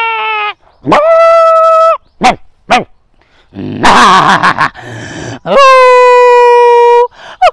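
A man imitating jackal howls and dog barks with his voice. Long, drawn-out, steady-pitched howls alternate with two short sharp barks and a rough, harsh stretch about four seconds in, then another long howl and quick falling yelps near the end.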